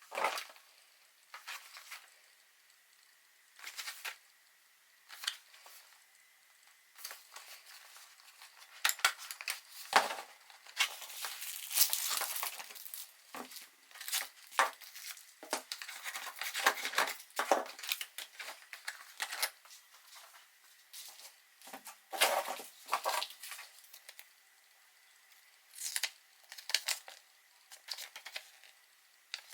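Packaging being handled and opened: cardboard and plastic wrap rustling, crinkling and tearing in irregular bursts with scattered clicks, busiest in the middle stretch.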